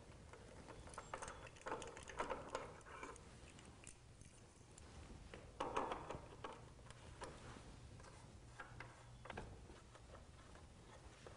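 Faint ratcheting clicks of a hand ratchet turning a bolt on a motorcycle's dash cover, in a few short runs, with some light knocks from the part being handled.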